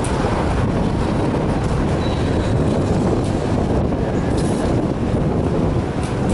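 Tatra tram running along the track, heard from on board: a steady rumble of wheels on rail with a few faint clicks.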